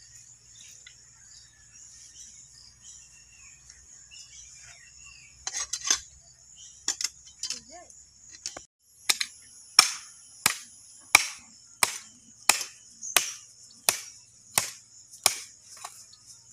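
A heavy chopping knife hacks into a cow's head, splitting the skull, in a steady run of about ten blows roughly two-thirds of a second apart in the second half. A few scattered knocks come before the run. A steady high insect buzz sounds behind the blows.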